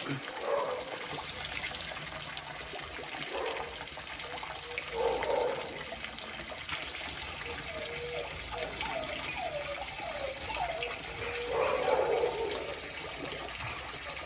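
Steady splashing of a stream of water pouring into a koi pond from its spout. A quick run of short, chirp-like squeaks comes about two-thirds of the way through.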